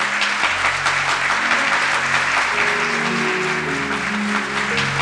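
Audience applauding steadily, with instrumental background music whose melody of held notes comes in underneath about a second or two in.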